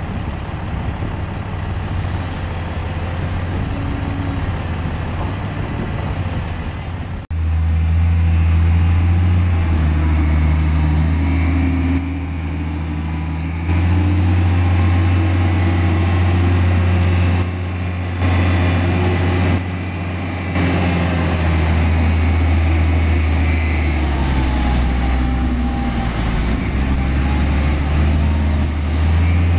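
Heavy diesel machinery at work: first the excavator and waiting dump truck running while the truck is loaded, then, after a sudden change about seven seconds in, a Caterpillar 740 articulated dump truck's diesel engine pulling under load as it drives loaded through mud, its note rising and falling several times with the throttle.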